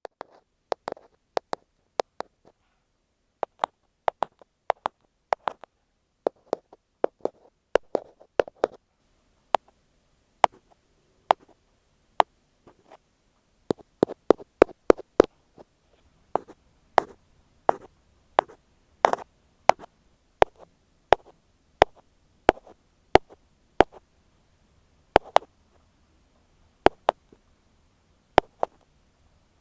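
Ear pick tapping on an earphone microphone, heard close-up. It makes sharp, separate taps at irregular spacing, about one or two a second, with a quick run of taps a little past the middle.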